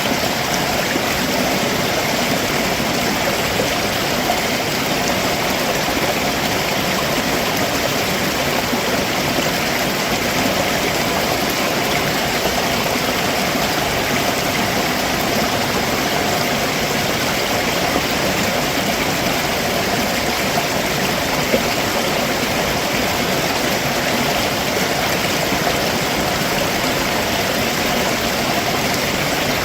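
Stream water running over rocks below a waterfall: a steady, even rush with no pauses.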